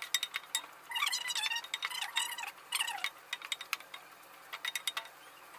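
Wooden spoon stirring and scraping chopped onions frying in a non-stick pot, a string of short scrapes and light taps with a longer run of scraping about one to three seconds in.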